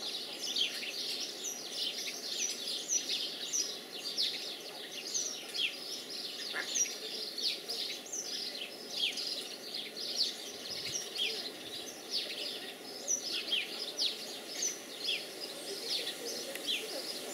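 A brood of ducklings peeping without a break: many short, high, falling peeps overlapping, several a second, over steady low background noise.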